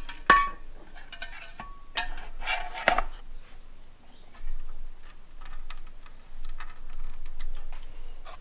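Metal clanks, taps and scrapes as a car head unit's metal chassis is handled and slid down into its metal mounting bracket. The sharpest clank, with a brief ring, comes about a third of a second in, with more knocks around two and three seconds in.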